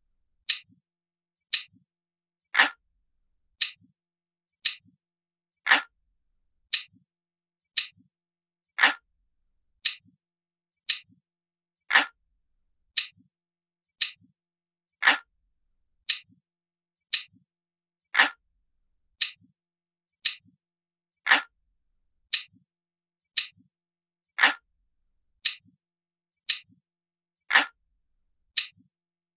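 Crisp, glass-like clock ticking, one sharp tick about every second, with every third tick a little louder.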